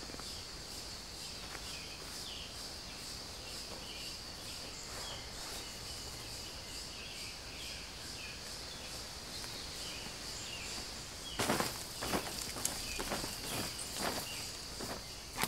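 Rainforest insect chorus: a steady high buzz with scattered short chirps. From about eleven seconds in, a run of rustles and sharp knocks from camp gear and rope being handled.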